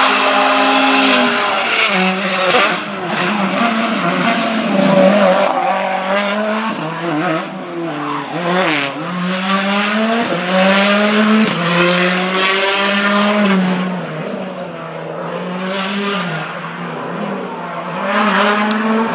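Hyundai i20 R5 rally car's 1.6-litre turbocharged four-cylinder engine at hard throttle, revving up through a series of quick gear changes as the car drives past and away. The pitch climbs and falls back with each shift. The engine grows fainter about three-quarters of the way through, then swells again briefly near the end.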